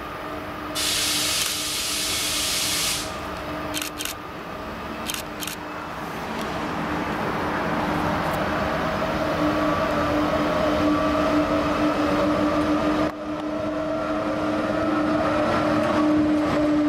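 ZSSK class 361 electric locomotive approaching and passing at the head of a passenger train, with a steady humming whine from its drive that grows louder as it nears. A brief hiss comes about a second in.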